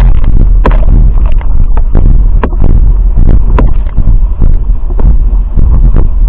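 Wind blasting a boom-mounted camera's microphone in a heavy, steady low rumble while a windsurf foil board sails through chop, with irregular slaps and splashes of spray and water striking throughout.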